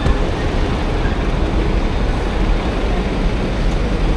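Steady city traffic noise in congested street traffic, with a heavy low rumble throughout.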